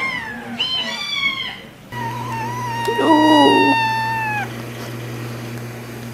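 Kittens meowing: a few short rising-and-falling meows, then one long drawn-out meow held for about two and a half seconds, sliding slightly down in pitch.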